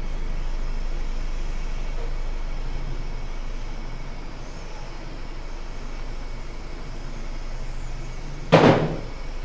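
Steady low electrical-sounding hum with a background wash of noise. About eight and a half seconds in comes one short, loud noise.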